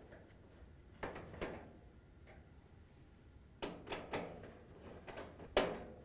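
5/16-inch nut driver on the hex-head screws of a dryer's sheet-metal front panel, tightening them: a few scattered metallic clicks and light knocks, with the sharpest near the end.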